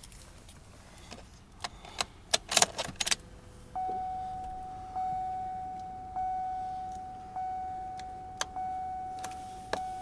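Car keys jingling and clicking, then the 2004 Cadillac SRX's interior warning chime: one clear tone struck about every 1.2 seconds, each fading away before the next.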